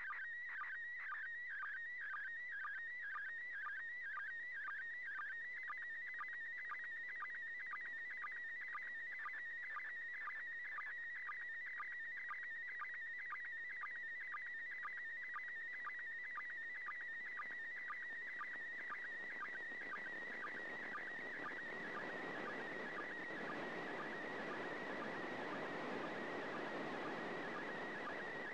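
Slow-scan TV (SSTV, PD120 mode) audio from the International Space Station received on a 145.800 MHz FM receiver: a warbling tone around 2 kHz broken by short dips about twice a second, the line sync pulses. From about two thirds of the way in, FM hiss rises and partly covers the tones as the signal weakens.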